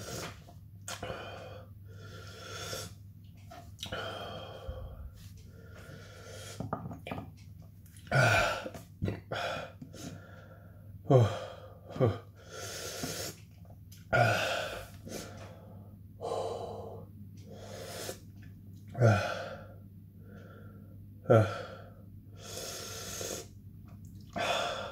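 A man breathing hard through his mouth from the burn of chugged hot sauce, broken by about six sharp hiccups. Each is a sudden catch that drops quickly in pitch, coming at irregular gaps of one to five seconds.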